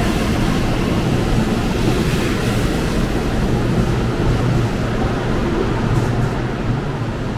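Kintetsu 80000 series Hinotori express train running past along an underground station platform: a loud, steady rushing rumble of the moving train, easing slightly near the end.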